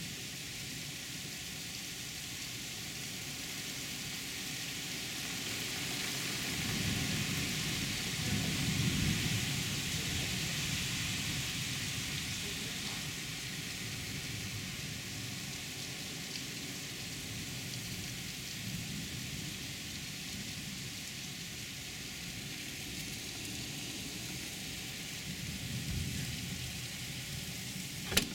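Heavy rain pouring steadily in a summer thunderstorm, heard from behind a rain-streaked window. The downpour swells louder and deeper about a quarter of the way through, then settles back. There is a short knock at the very end.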